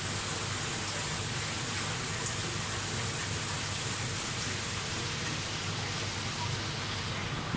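Steady rushing of water with a low hum underneath, the running noise of a saltwater aquarium's pumps and water circulation.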